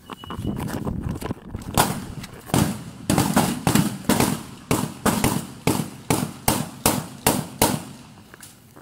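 Gunfire: a rapid, uneven volley of more than a dozen gunshots, about two a second, starting about two seconds in and stopping shortly before the end.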